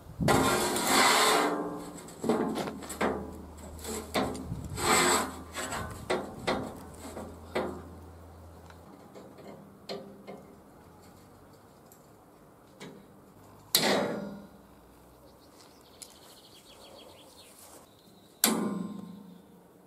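A steel flat bar scraping and knocking as it is slid and positioned across a steel plate, with a busy run of scrapes and clanks in the first half. Later come two sharp metallic snaps, each with a short ring, as locking pliers clamp the bar to the plate.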